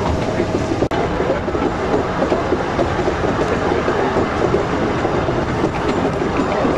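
Schynige Platte rack-railway train running, a steady rumble and rattle of the carriage and wheels heard on board, with small clicks along the way.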